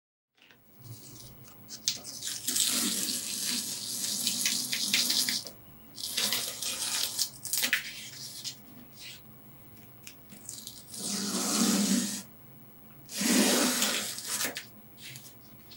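Spray paint hissing out of the nozzle in four bursts, the first about three seconds long and the others one to two seconds, with quieter gaps between.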